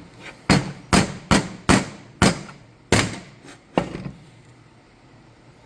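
About seven sharp knocks, unevenly spaced over some four seconds, from work on a 6L80 transmission pump to free the boost valve from its bore.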